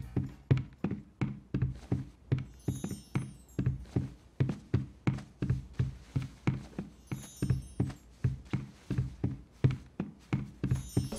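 A sparse, steady beat of low pitched thuds, about two and a half a second, with short runs of faint high ticks now and then.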